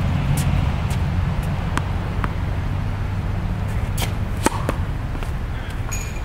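A tennis serve: a few light ball bounces on the hard court, then one sharp racket-on-ball strike about four and a half seconds in, the loudest sound, over a steady low rumble.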